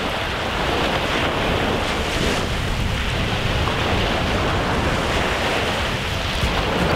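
Small waves breaking and washing up a sandy beach, with wind rumbling on the microphone.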